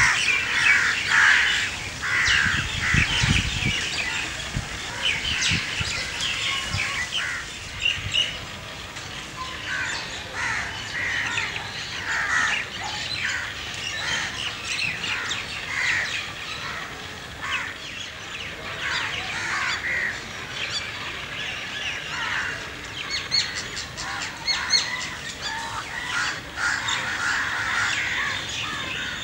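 Crows cawing over a busy chorus of chirping birds, with calls following one another without a break.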